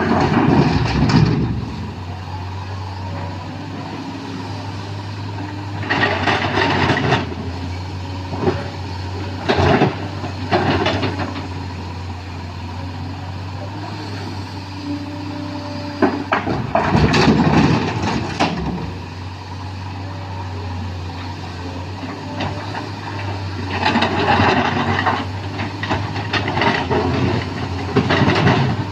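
Sany SY215C excavator's diesel engine running steadily, with several loud bursts of rock clattering and scraping as the bucket digs and dumps mountain rock into a dump truck.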